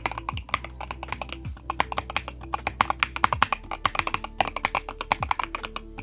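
Typing on a Lofree Foundation mechanical keyboard: fast, uneven runs of key clacks, several a second, with short pauses between bursts.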